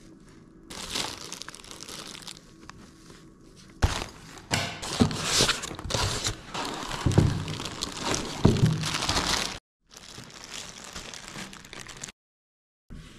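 Plastic wrapping crinkling and a cardboard box rustling as a portable power station and its accessories are handled and lifted out of the packaging, with a few sharp knocks. It grows busier and louder about four seconds in, then breaks off suddenly twice near the end.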